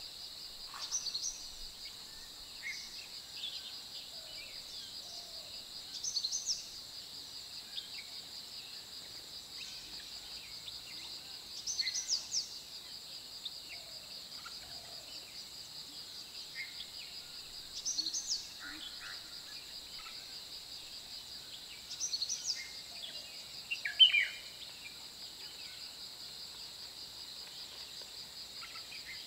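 Wild forest ambience at a lake: a steady high insect drone, with birds calling in short bursts about every six seconds. The loudest call comes about 24 seconds in.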